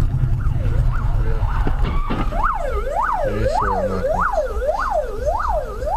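Emergency-vehicle siren wailing in a fast, regular up-and-down yelp, a little under two sweeps a second. It is faint at first and becomes loud about two seconds in, over a steady low rumble of engine and road noise.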